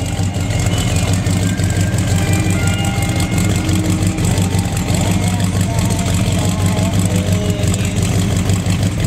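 A show car's engine idling with a loud, steady, low exhaust rumble, with people talking in the background.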